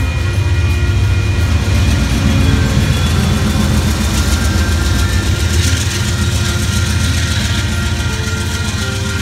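Amtrak Pacific Surfliner train rolling past a grade crossing: bilevel cars rumble and clatter by steadily, and the trailing P42DC diesel locomotive passes near the end. Crossing signal bells ring throughout.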